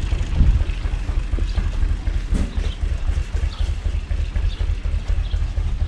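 Four-cylinder diesel engine of a UTB Universal 445 DT tractor running steadily at idle, a low even rumble.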